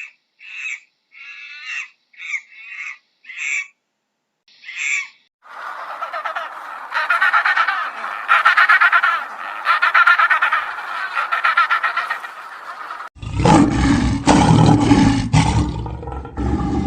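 A run of different animal calls one after another: about seven short, high calls in the first five seconds, then a long call made of fast pulses, then a louder, deeper call starting about thirteen seconds in.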